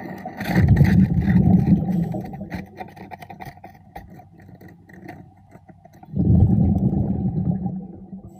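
A diver breathing out underwater: the exhaled bubbles rumble twice in long bursts a few seconds apart, with small clicks and crackles between them.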